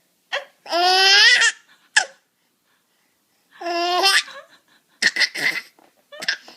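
Baby laughing in high-pitched bursts with pauses between them: a long laugh rising in pitch about a second in, another around four seconds, then a run of short, choppy laughs near the end.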